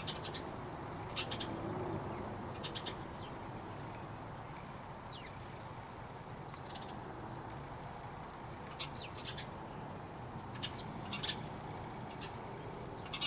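Small birds chirping in short, scattered high bursts every second or two, over a steady low background hum.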